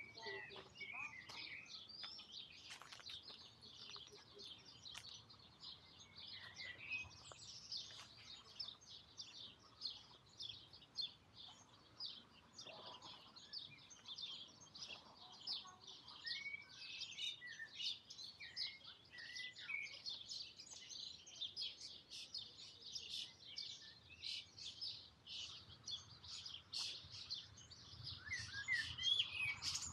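Small birds chirping and singing in the trees, a busy chorus of short, high notes, with a few lower, falling calls now and then.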